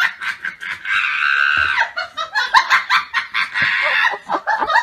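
A person laughing hard in quick high bursts, breaking twice into a long held high squeal.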